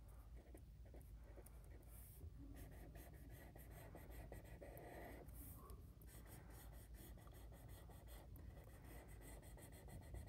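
Felt-tip marker drawing on paper: faint, short scratchy strokes as the tip goes over lines.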